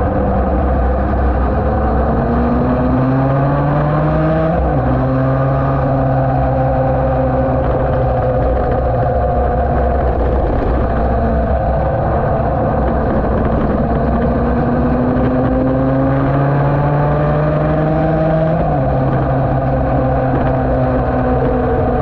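A Yamaha TD1B two-stroke racing motorcycle's engine pulling hard under load, recorded onboard. The pitch climbs, drops abruptly at an upshift about five seconds in, holds steady, then climbs again and drops at another upshift a few seconds before the end, all over a constant wind rush.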